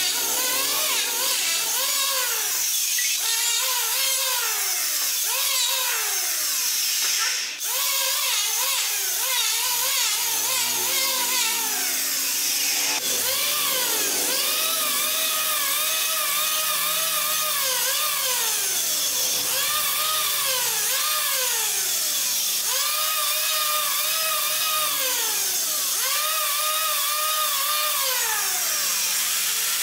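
Electric hand planer cutting into a curved wooden rail piece, shaving off wood. Its motor whine rises, holds and falls again and again, about every two seconds, as it is run through pass after pass.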